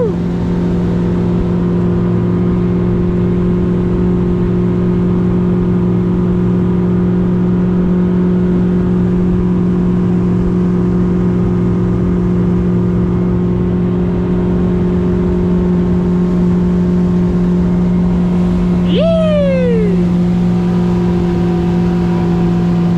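Boat engine running steadily at speed under way, its pitch holding constant. About nineteen seconds in, a short pitched cry sweeps downward over about a second.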